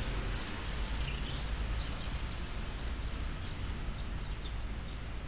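Outdoor ambience: a steady low rumble with faint, scattered high chirps of small birds.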